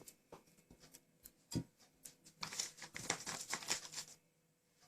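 A baking tin being greased with margarine: a few light clicks and a knock, then a run of quick rubbing strokes in the middle.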